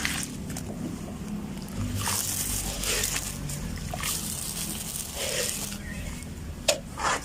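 Dry sand-cement crumbling and crunching in a few bursts of gritty crackle, with two sharp snaps near the end.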